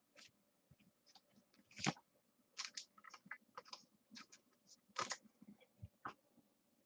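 Faint, scattered rustles and clicks of trading cards being handled and set down, with sharper ticks about two seconds in and again about five seconds in.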